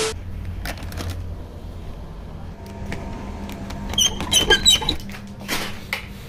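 A plastic packet of Haldiram's salted potato chips crinkling and rustling as it is picked up and handled, densest about four to five seconds in, over a low background hum.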